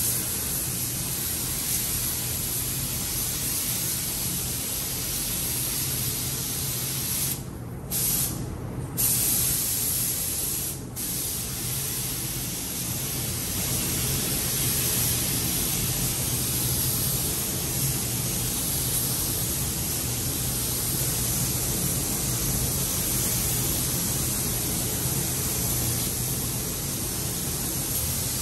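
Gravity-feed automotive paint spray gun hissing steadily as base coat is sprayed onto a car's panels. The spray cuts out briefly three times, between about a quarter and two-fifths of the way in, as the trigger is let go between passes.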